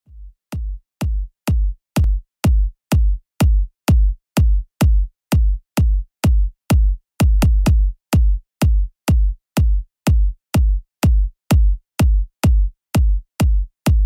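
Electronic dance background music with only a drum-machine kick beat, about two thumps a second, fading in over the first couple of seconds.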